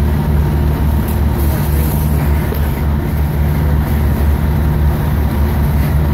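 A fire engine's engine running steadily at a constant low pitch while it pumps water to the hose lines.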